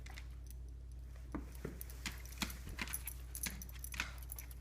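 Metal tags on a dog's collar clinking irregularly as the dog moves, about ten light jingles over a steady low hum.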